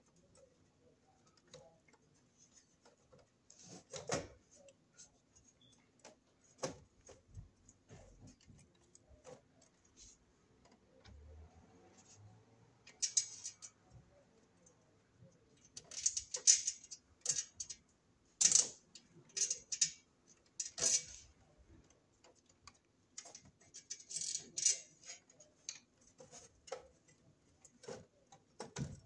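Electrical breaker panel cover being worked into place over the breakers: scattered clicks, taps and short scraping rattles as it is pushed and shifted, busiest in the second half.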